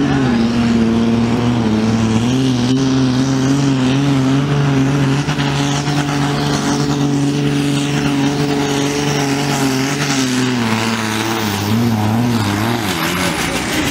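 Tractor-pulling tractor's diesel engine running flat out under load as it drags a weight-transfer sled, loud and steady in pitch. Near the end the engine note wavers and drops.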